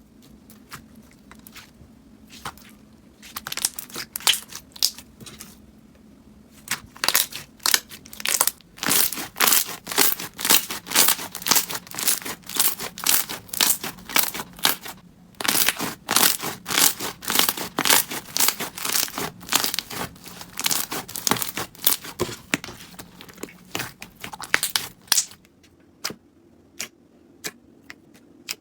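Slime being squeezed and pressed by hand, giving a stream of crackles and pops. The pops are sparse at first, come thick and fast through the middle, and thin out to a few single clicks near the end.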